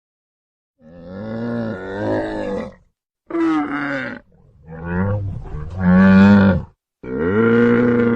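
Camel calls: four deep, drawn-out groaning bellows with gaps between them, the last one still going at the end.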